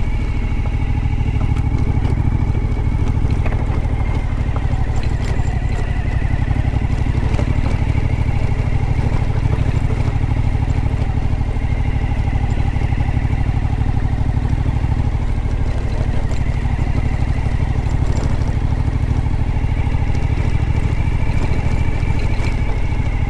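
Suzuki V-Strom's V-twin engine running steadily as the motorcycle is ridden along at an even pace, with no big revs or gear changes.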